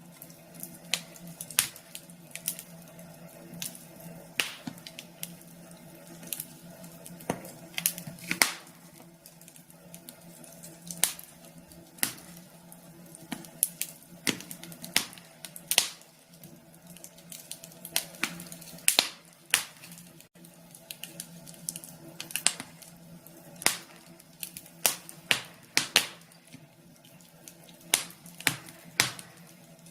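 Wood fire in a fireplace crackling, with sharp, irregular pops and snaps, some louder than others, over a steady faint hum.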